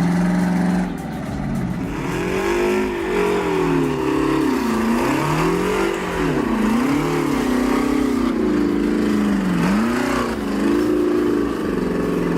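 Vehicle engine running and revving up and down, its pitch rising and falling again and again, steadier at the start and near the end.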